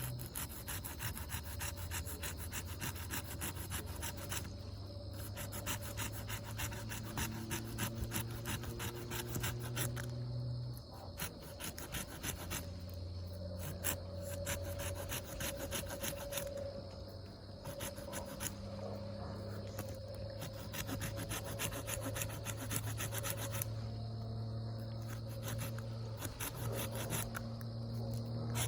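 Small multitool saw blade cutting wood in rapid back-and-forth strokes, in several runs broken by short pauses.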